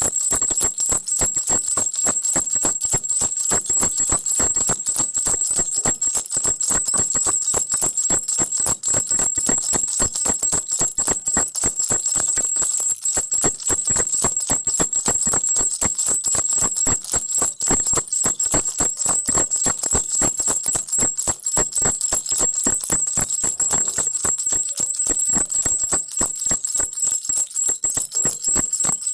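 Crocodile baby rattle shaken rapidly and without pause: a dense run of clicks with a steady high ringing over them.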